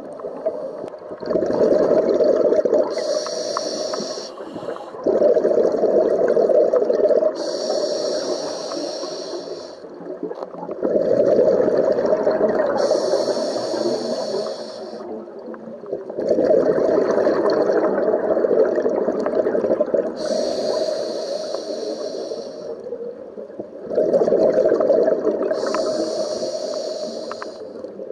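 Scuba diver breathing through a regulator underwater: a hiss on each breath in and a rush of gurgling exhaust bubbles on each breath out, in slow, even cycles about five seconds apart.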